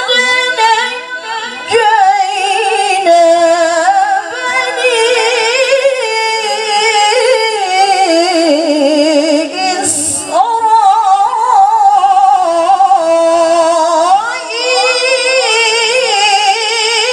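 A woman's solo Qur'an recitation (tilawah) through a microphone, sung in long, ornamented melodic phrases with wavering vibrato. There are short breath breaks about ten and fourteen seconds in.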